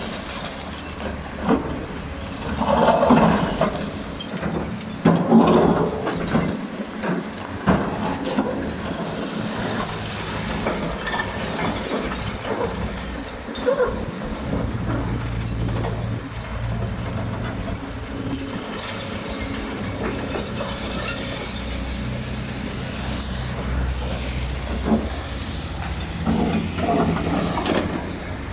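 Excavator working: its engine runs steadily under the hydraulics, with louder surges about three and five seconds in and again near the end, and scattered knocks.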